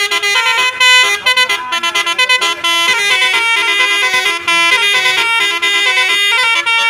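Indonesian bus 'telolet' horn, a set of multi-tone air horns, playing a loud melody: quick short notes for the first couple of seconds, then longer held notes.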